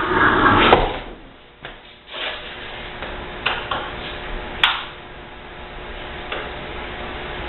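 Knocks and clicks of metal and plastic parts and tools being handled while a dishwasher is taken apart: a scraping rattle in the first second, then several separate sharp knocks spread through the rest.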